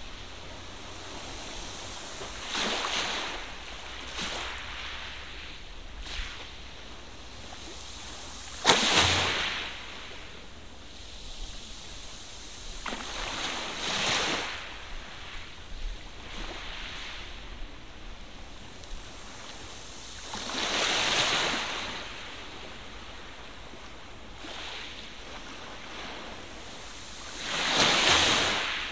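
Magazine pages being turned by hand: a paper swish every few seconds, about six in all, the loudest with a sharp start about a third of the way in, over a steady low hiss.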